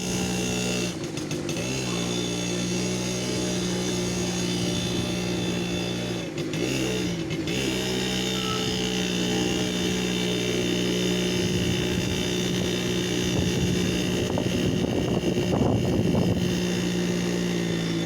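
TVS 50 moped's small two-stroke engine running steadily under way, its pitch dipping briefly and coming back up twice. Later there is a rougher, rattling stretch.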